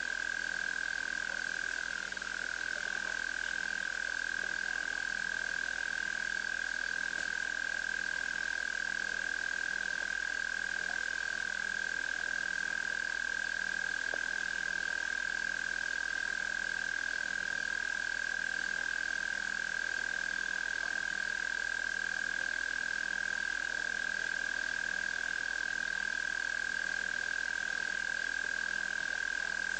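Frog chorus at a waterhole at night: one steady, unbroken high-pitched trill, with a faint low croak pulsing slightly faster than once a second under it.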